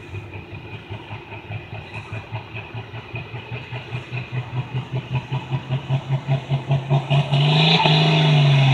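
International 1256 pulling tractor's turbocharged six-cylinder diesel, built to run at 3200 RPM, pulsing about four times a second and growing louder. About seven seconds in it goes to a steady full-throttle run under load as the pull begins, its pitch rising and then settling.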